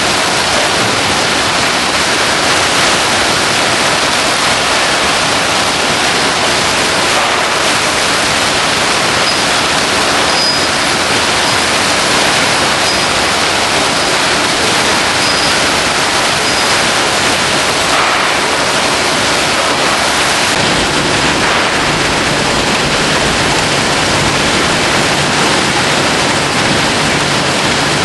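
Steady, loud din of a crate-handling conveyor line running, an even rushing noise with no distinct knocks. A low hum joins about three quarters of the way through.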